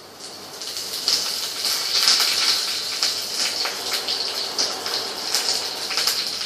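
Fresh curry leaves sizzling and crackling in the hot oil of a tadka (tempering of mustard seeds, urad dal and chilies) in a small saucepan. The sizzle swells up about half a second in, right after the leaves go in, and keeps going as a dense crackling hiss.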